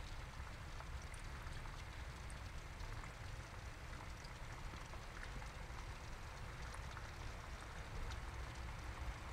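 Steady trickling of water in a small turtle pond, with a low hum underneath and faint scattered ticks.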